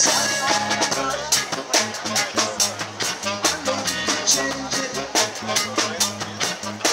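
Live band playing: acoustic guitars strumming over a drum kit keeping a steady beat, about two drum hits a second.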